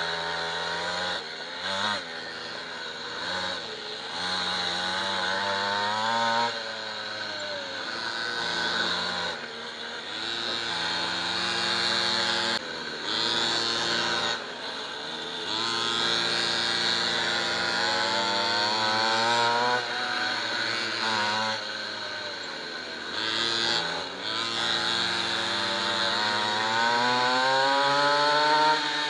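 Small 50cc two-stroke minimoto (pocket bike) engines racing. Their pitch climbs and falls again and again as the bikes accelerate out of corners and lift off for the next ones, with a long rising rev near the end.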